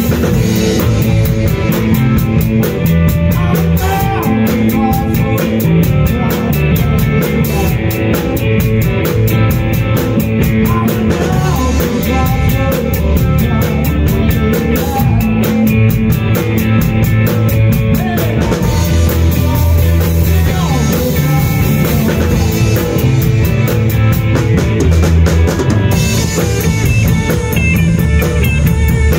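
Live rock trio playing together: drum kit with steady cymbal beats, electric guitar and electric bass.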